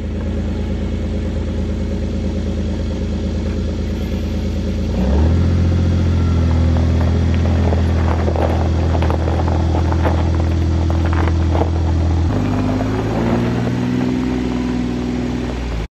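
A motor vehicle's engine running steadily, its pitch stepping to a new level about five seconds in and shifting again near the end, with some rattling and clatter in the middle.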